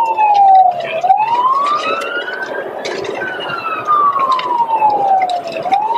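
Police car siren in a slow wail, its pitch rising and falling over a cycle of about four to five seconds. It sounds over steady road noise and scattered short knocks.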